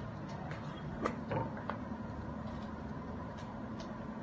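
A few light clinks of a metal eating utensil against a plate as a child eats, most of them about a second in, over a steady background hum.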